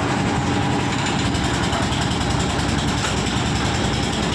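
JCB 155 skid steer loader's engine running steadily at a constant speed.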